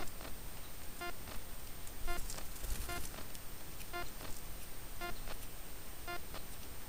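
An animal's short call, repeated about once a second at the same pitch, over a steady hiss.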